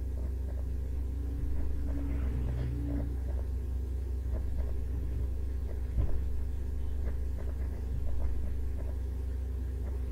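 Steady low hum, with faint scattered clicks and a single soft thump about six seconds in.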